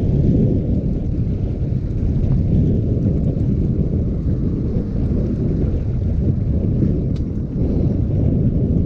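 Wind buffeting a GoPro Hero6's microphone, its wind-noise reduction switched off, while riding a bicycle: a loud, steady, low rumble.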